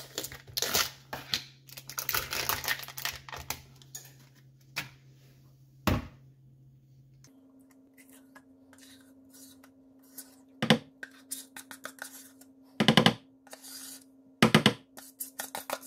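A plastic sour cream tub being opened and a spoon scraping the sour cream out of it into a plastic mixing bowl. A run of quick crackly clicks comes in the first few seconds, then several sharp knocks later on as the spoon strikes the tub and bowl.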